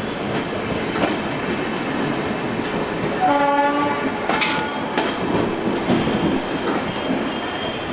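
Passenger train running along a station platform as it pulls in, its wheels clicking now and then over rail joints. A short train horn blast sounds about three seconds in.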